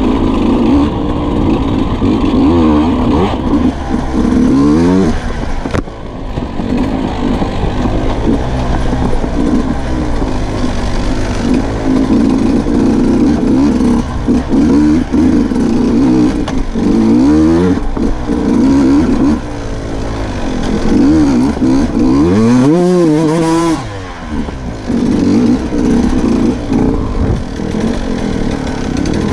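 Sherco 125 dirt bike's engine revving up and down over and over as it is ridden on trail, the throttle opening and closing every second or two. About 23 seconds in, the revs drop low and climb sharply again.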